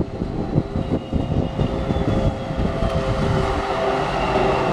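Diesel locomotive approaching at speed with a passenger train: a steady engine drone with a high whine over it, growing louder as it nears.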